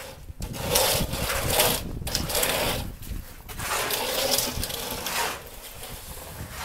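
Plaster-spraying machine's spray gun blowing mortar onto a wall in three bursts of rushing spray, each one to two seconds long.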